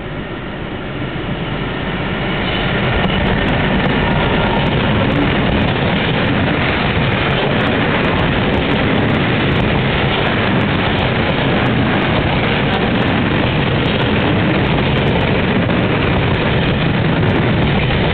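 Freight train passing at speed, hauled by an NMBS/SNCB HLE 12 class electric locomotive. The noise builds over the first three seconds as the train comes by. It then holds as a steady rumble and rolling wheel noise while the grain hopper wagons run past.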